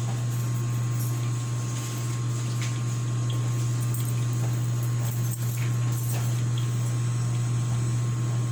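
A steady low machine hum, unchanging throughout, with a few faint scattered ticks.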